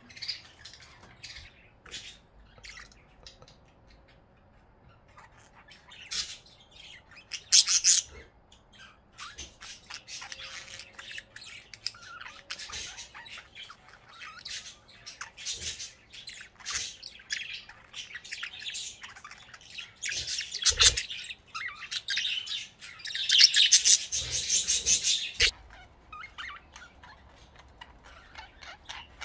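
Budgerigars chirping and chattering in irregular bursts of short, high calls, busiest and loudest near the end, with a single knock about two-thirds of the way through.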